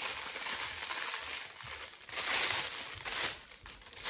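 Packaging crinkling and rustling as an item is unwrapped by hand, loudest in a burst about two seconds in.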